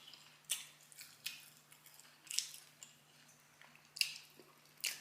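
Close-miked chewing, with about five wet mouth and lip smacks at irregular intervals over a faint low steady hum.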